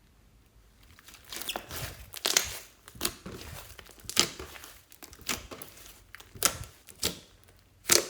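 Hands kneading and stretching slime: sticky, crackly squishes and pops come in uneven bursts after about a second of quiet.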